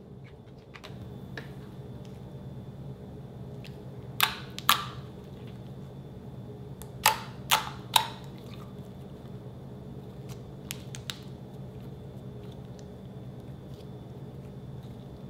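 White slime being pressed and squished by hand, giving sharp popping squelches: two about four seconds in and three in quick succession about seven seconds in, with a few faint ticks later, over a steady low hum.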